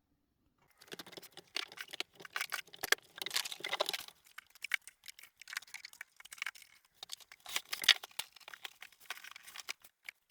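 Irregular rustling and crinkling of packaging being handled, with sharp crackles and small clicks, in uneven bursts.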